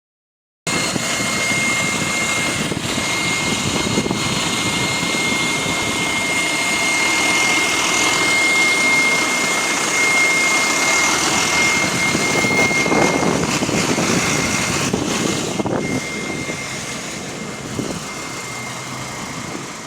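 Bus running with a steady, high-pitched whine over its engine and road noise, a strange noise whose cause is unknown. The whine fades after about three-quarters of the way through.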